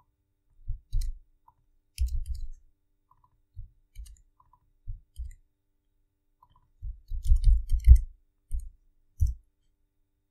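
Computer keyboard being typed on: irregular dull keystroke knocks with faint clicks, in short scattered groups, with a quick run of keystrokes about seven to eight seconds in.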